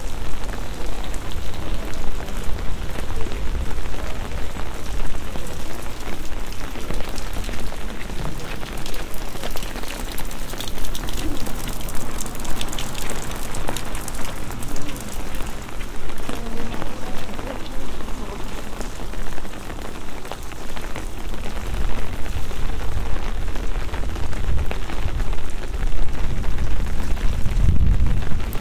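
Steady rain falling, with a dense patter of drops on wet paving.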